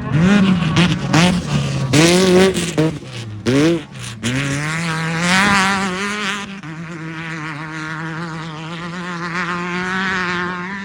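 Off-road race car engine revving hard, its pitch rising and falling repeatedly over the first few seconds amid loud rushes of noise, then holding a steady high-revving note.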